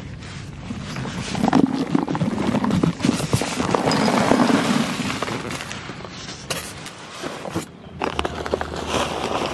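Clods of hard, compacted old potting soil poured from a container into a fabric planter bag, rattling and crackling onto dry leaves for several seconds. After a short lull, a few more scattered clatters as hands spread the lumps.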